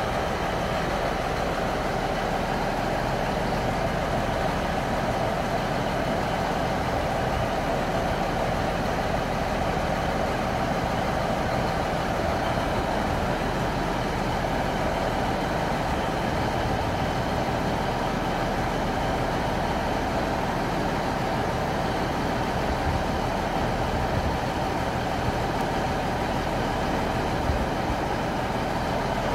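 A stationary train running with a steady mechanical hum and drone that does not change.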